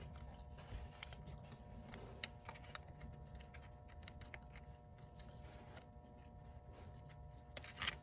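Light scattered clicks and taps of a small protective cover and its bolts being handled and fitted over an ATV shift motor, with a few sharper clicks near the end.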